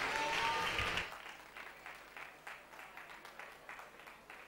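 Audience applause, full for about the first second along with a pitched sound from the hall, both dropping away abruptly; after that only scattered hand claps remain, thinning out.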